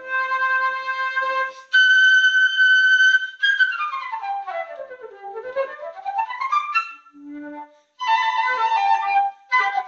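Concert flute played solo: a couple of held notes, then a loud high note, then a quick run of notes sliding down and back up. After a short break near the end the playing resumes.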